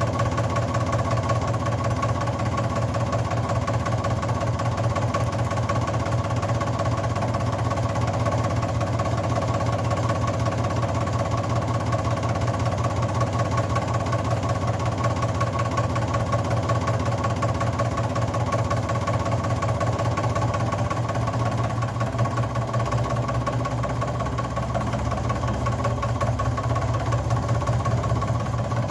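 Milling machine power feed running steadily: its electric motor and gearbox give a loud, even hum with a fast buzzing pulse, dipping slightly about three quarters of the way through.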